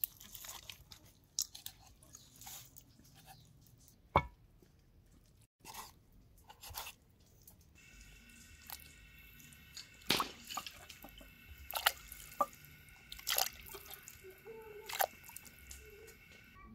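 Scattered knocks, clicks and drips of irregular handling, a few of them sharp. A steady high-pitched tone with several overtones sets in about halfway through.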